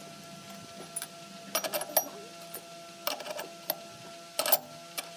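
Steel spacer collars and a cutter head clinking and knocking against each other and the spindle moulder's cast-iron table as they are handled and fitted onto the spindle, in three short bursts of metal clatter over a faint steady hum.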